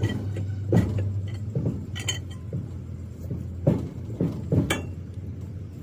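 Metal tools and parts clinking and knocking against each other in irregular sharp strikes, over a steady low hum.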